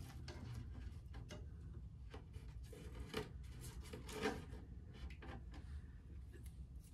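Faint handling sounds of hands on wooden dollhouse kit pieces: rubbing, and a few light knocks, the clearest about three and four seconds in, as a wall section is pressed into place and taped down, over a low steady hum.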